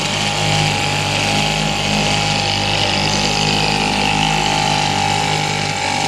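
1947–48 Neptune Mighty Mite 1.7 hp two-stroke outboard motor running steadily at a low, even speed, purring like a kitten.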